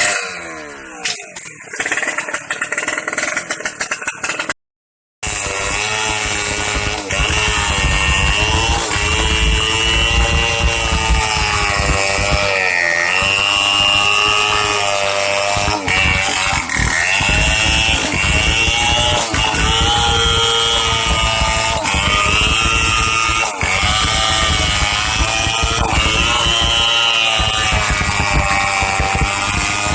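STIHL 070 two-stroke chainsaw running hard while ripping timber lengthwise, its engine pitch sagging and recovering again and again as the chain takes load in the wood. Near the start the engine winds down, with a brief silent break about five seconds in.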